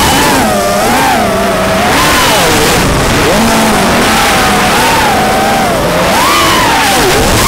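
FPV racing quadcopter's brushless motors whining, the pitch rising and falling over and over as the throttle is worked through the course.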